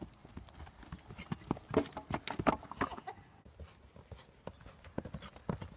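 Hoofbeats of a ridden horse trotting on a grass-and-dirt paddock: a run of uneven knocks and thuds, loudest and thickest about two seconds in.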